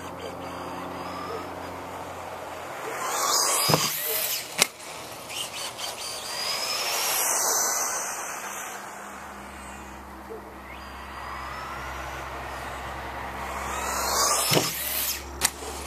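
Losi XXX-SCT radio-controlled short-course truck's electric motor whining as it speeds past, twice, each pass followed by sharp knocks as the truck leaves the ramp and lands on the pavement.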